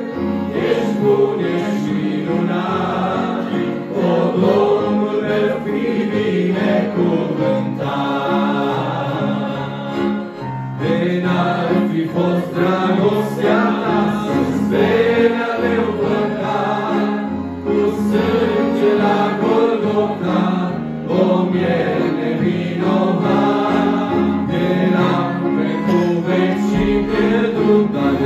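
A small mixed vocal group of women and men singing a Pentecostal hymn in harmony, accompanied by an electric keyboard.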